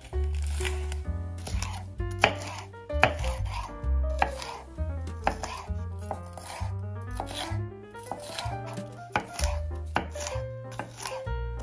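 Chef's knife chopping a red bell pepper on a wooden cutting board: a run of irregular sharp knocks as the blade cuts through the pepper and hits the board, with background music underneath.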